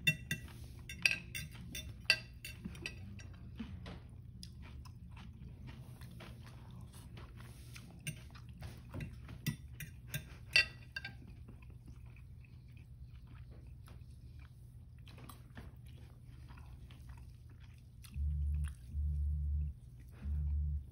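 Goldendoodle snapping at a fly: scattered sharp clicks of its jaws, loudest about a second and two seconds in and again near eleven seconds. Near the end, a low buzzing that starts and stops in short bursts.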